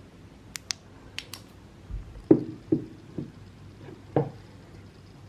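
Handling of flashlights: a few light, sharp clicks, then four or five dull knocks spread over the next couple of seconds.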